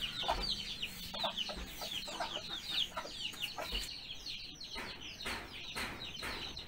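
Chickens calling: a steady chorus of short, high, falling peeps, several a second.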